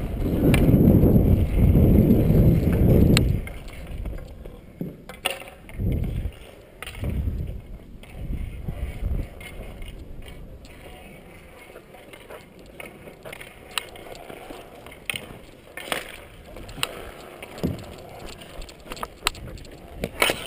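Street hockey play heard from a helmet-mounted camera: a loud low rumble for the first three seconds or so, then scattered sharp clacks of sticks striking the plastic ball and the court surface.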